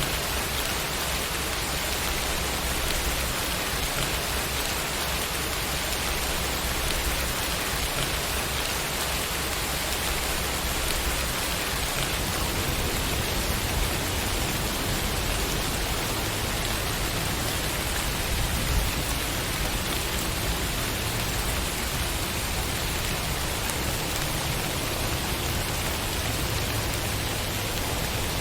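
Steady rainfall, a continuous even hiss of drops falling on surfaces.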